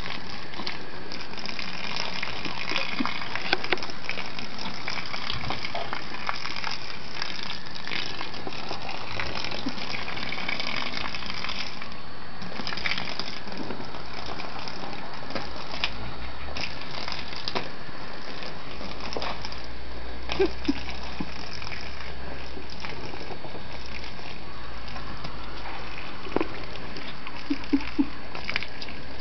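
Garden hose spraying a steady stream of water onto grass, a continuous gushing hiss, with a few short knocks scattered through it.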